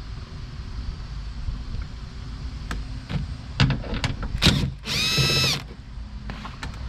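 Scattered clicks and knocks of a socket tool on metal, then a cordless power tool whirs briefly, about five seconds in, backing out a 10mm bolt.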